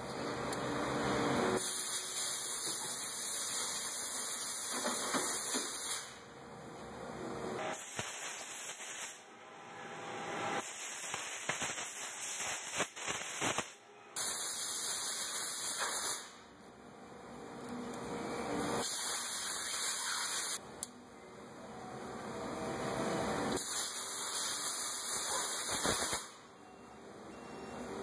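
Steady hiss that slowly swells and then drops back sharply, several times over. Between about 8 and 14 seconds in, a rougher stretch carries a scatter of light clicks and taps.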